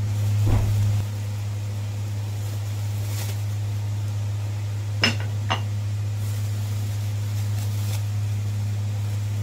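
Two light clinks of a metal spoon against a stainless wok about five seconds in, over a steady low hum, with a soft thump about half a second in.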